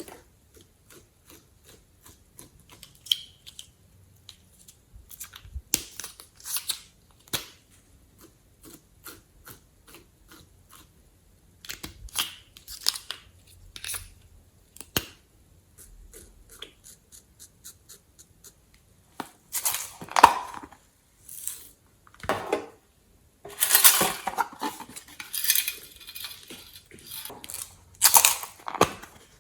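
Glossy slime being worked by hand: scattered sticky clicks and pops. Louder, denser crackling squelches come in the second half.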